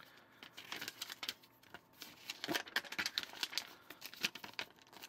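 Small plastic Lego pieces clicking and rattling as they are picked through and handled on a tabletop, mixed with the rustle of the paper instruction booklet's page being turned. The sounds come as scattered short clicks in several clusters.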